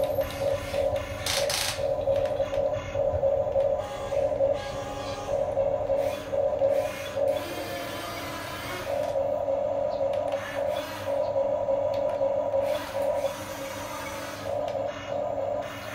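Huina 1550 remote-control excavator's electric gear motors whining in short bursts, starting and stopping as the boom, arm and bucket are worked. About halfway there is a stretch of scraping as the bucket digs into sand.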